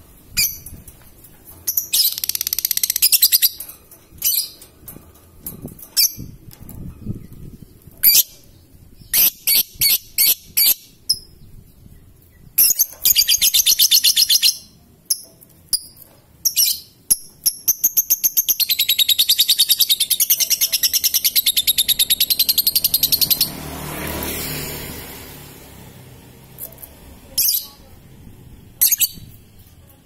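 Fischer's lovebird giving short high chirps and rapid rattling trills, its 'ngekek' chatter, the longest trill lasting about five seconds a little past the middle. A brief lower rushing sound swells just after that long trill.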